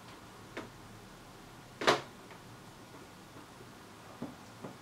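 Handling of a metal helping-hands clamp holding a circuit board: a few light clicks and one sharp, louder click about two seconds in.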